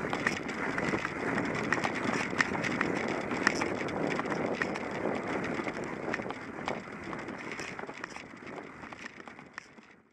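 Mountain bike riding over a snowy trail: a steady rumble of the tyre on snow, with frequent rattles and clicks from the bike and wind on the microphone. It fades out steadily over the last few seconds.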